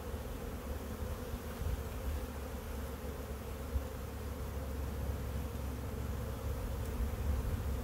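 Steady hum of honeybees flying around an open hive while a frame covered in bees is lifted out and held up, over a low rumble.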